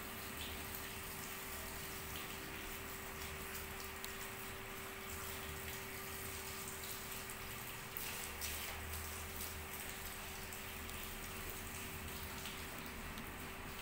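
Handheld shower sprayer running steadily, water spraying through a person's hair and splashing into a salon shampoo basin as the shampoo is rinsed out.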